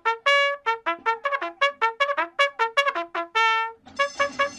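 Brass instrument music, trumpet-like: a quick run of short detached notes with two longer held notes. About four seconds in, a rushing noise comes in underneath.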